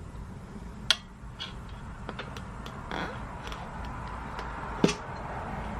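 Tire levers clicking and knocking against the wheel rim as the bead of a soft Dunlop Moto3 front slick is worked onto it by hand: two sharp knocks, about a second in and again near the end, with lighter ticks between.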